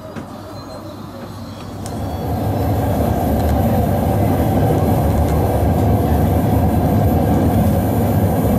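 ED9E electric multiple unit pulling away from a station, heard from inside the passenger car. Its running noise of wheels and motors builds over the first two to three seconds as it gathers speed, then holds steady and loud.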